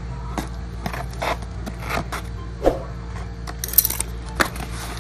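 Cardboard box's packing tape being slit with a plastic box cutter: a run of separate scrapes and clicks as the blade works along the seam, with a louder one a little before three seconds in and a bright rasp near four seconds.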